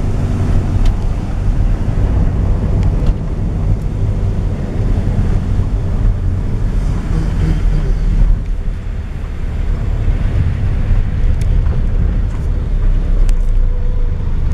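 Steady low road and engine rumble heard from inside a moving vehicle on a wet road, with wind buffeting the microphone and a few faint ticks.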